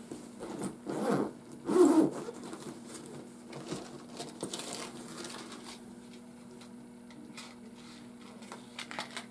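Rustling and handling of a bag and small packaged items as they are rummaged through and taken out. There are a few louder rustles in the first two seconds, then quieter scattered rustles and small clicks.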